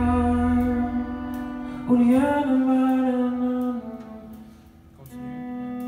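Live band music: long held notes with a slide up in pitch about two seconds in, dying down to a quiet moment just after the middle, then another held note.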